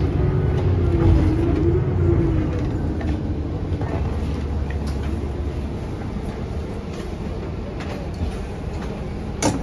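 Cabin noise of a New Flyer XD40 diesel city bus under way: a steady low rumble of engine and road that eases off somewhat through the middle, with a sharp click near the end.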